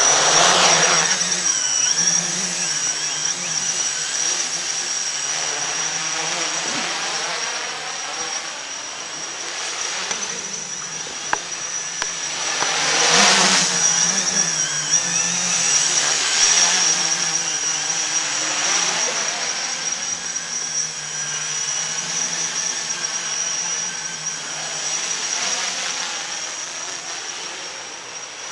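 Quadcopter's electric motors and propellers buzzing as it lifts off and flies, the pitch wavering constantly as the throttle changes, over a steady high whine. It is loudest at liftoff and again about 13 seconds in.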